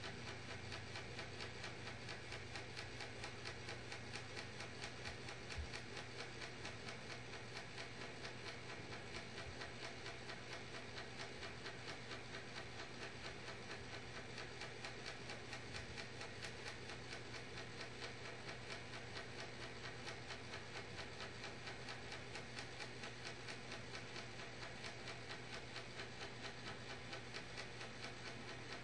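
A small motor running steadily, with a fast, even ticking over a low hum and hiss, and one brief click about five and a half seconds in.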